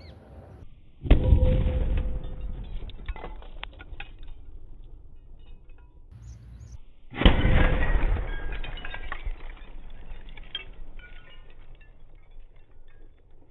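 A sutli bomb firecracker bursting among a cluster of glass beer bottles: a sudden loud bang about a second in, followed by the clinking and tinkling of shattered glass. A second bang comes about six seconds later, again trailed by glass clinking.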